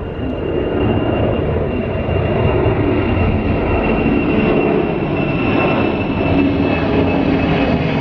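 Twin-engine jet airliner climbing out overhead at takeoff power: a loud, steady roar with a thin high whine over it, growing louder over the first two seconds and then holding.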